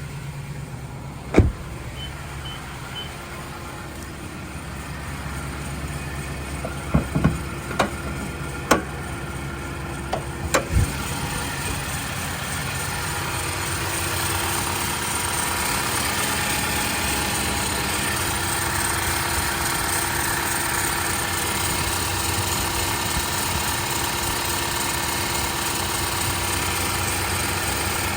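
Vehicle engine running steadily, with a loud sharp knock about a second in and a cluster of sharp knocks around seven to eleven seconds in; the running gets louder about halfway through. The owner finds the engine excessively noisy since the frame was changed.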